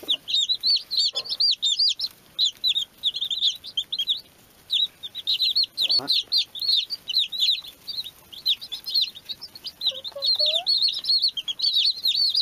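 A brood of baby chicks peeping: many short, high-pitched chirps overlapping almost without pause, thinning briefly about four seconds in.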